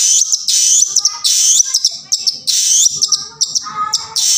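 Long-tailed shrike (cendet) singing a fast, varied song of high sweeping notes with lower warbled notes in between, breaking off briefly about two seconds in.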